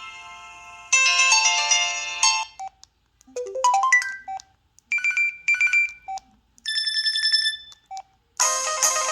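Preloaded ringtones on an LG 221C cell phone playing one after another. First a chiming melodic tune fades out, then a sparse tone of short electronic beeps and a trill with pauses between them, and near the end a new, fuller melody begins.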